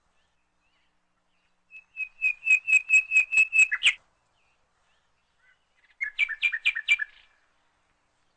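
Bird chirping: two quick runs of short, high chirps, about six a second, the first about two seconds in and a shorter one near the end.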